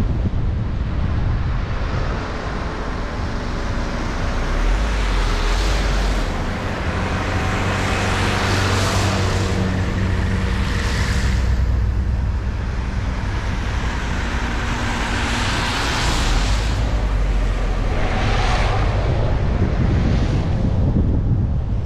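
Car driving on a wet road in heavy rain: a steady low engine hum under continuous tyre and wind hiss. The hiss swells up and fades again several times.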